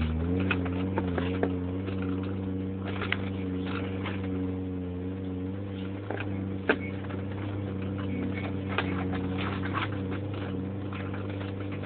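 Off-road Suzuki 4x4 engine idling steadily after the revs drop, settling in the first second or so. Scattered light clicks and taps sound over it.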